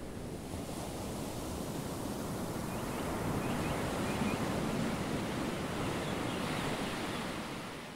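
A steady rushing noise like wind or surf, swelling slightly through the middle and fading out near the end, with a few faint high chirps partway through.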